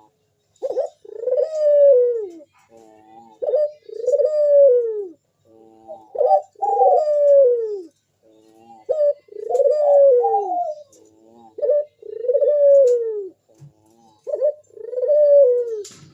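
Local puter dove, a collared dove, cooing over and over: each phrase is a short clipped note followed by a longer coo that rises and falls, repeated about every two and a half seconds. This is the steady calling bird-keepers call gacor.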